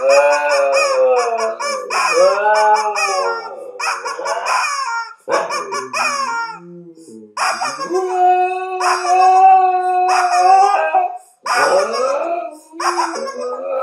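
Rubber chicken toy squeezed over and over, its squawks mixed with a dog howling along. The calls come in a string of wavering pitched notes with a long held note in the middle.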